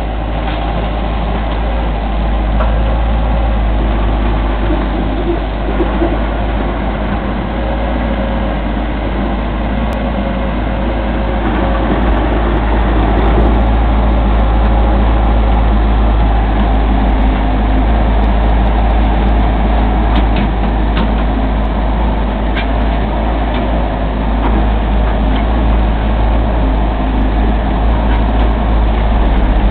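Carter CT45-7A mini excavator's diesel engine running steadily as the boom and bucket work the soil, with a few short clanks in the second half.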